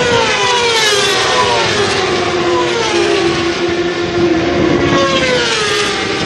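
Racing superbikes at full throttle passing by on the straight, each engine's note falling in pitch as it goes past: once at the start and again about five seconds in. A steady engine note from other bikes runs underneath.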